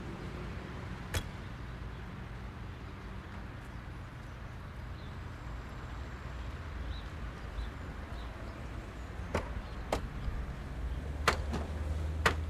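Sharp knocks of doors being shut, one early and a cluster of four in the last few seconds, as people get into a car, over a steady low rumble. Near the end a low engine sound swells as the car starts.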